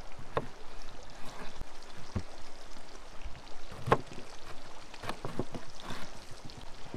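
Kitchen knife slicing a zucchini on a wooden cutting board: about half a dozen separate, irregular knocks as the blade meets the board, the loudest about four seconds in. A steady rushing noise runs underneath.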